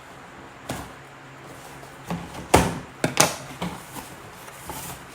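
Cardboard box being opened and handled: a series of sharp knocks and short scrapes, the loudest about two and a half seconds in.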